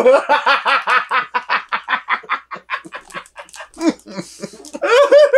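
A person laughing hard: a fast run of ha-ha pulses that slows and fades over about three seconds, a sharp breath in, then another burst of laughter near the end.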